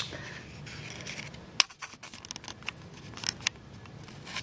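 Hands handling a cardboard sample card over tissue paper: scattered light clicks and scrapes, the sharpest about one and a half seconds in.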